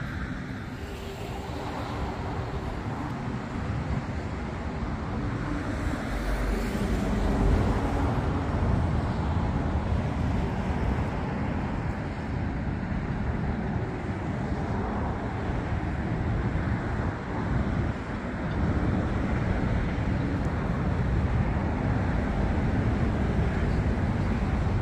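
Steady low outdoor rumble with no clear single source: wind on the microphone mixed with a traffic-like drone. It swells a little after about six seconds.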